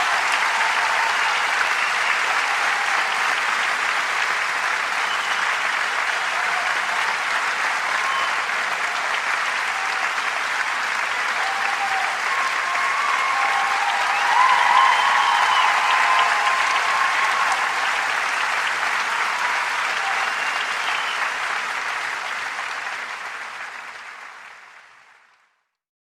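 Crowd applause, a dense steady clapping that fades out over the last few seconds.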